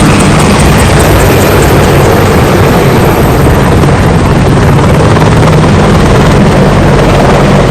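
Loud, steady helicopter rotor and engine noise, dubbed in as a sound effect for the toy helicopter.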